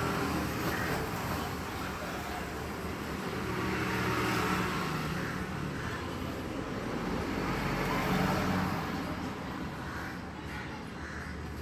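Motor vehicle engines and road traffic running steadily, growing louder about four seconds in and again about eight seconds in.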